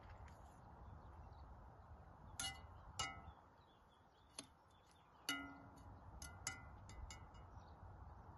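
Metal serving utensils clinking against plates and a cast-iron pot as food is served: a scattered series of sharp clinks with a brief ring, the loudest about two and a half, three and five seconds in.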